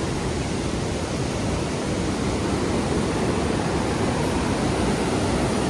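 Waterfall and rushing river water making a steady, loud roar.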